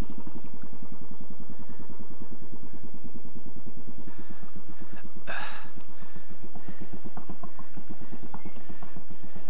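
Royal Enfield Classic 500 single-cylinder engine idling steadily, an even beat of firing pulses. A brief hiss-like noise sounds about five seconds in.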